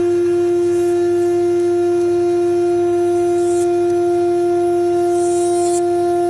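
CNC router spindle running with a steady pitched whine as its end mill cuts into 8 mm aluminum plate, with a few short hissing bursts of cutting noise.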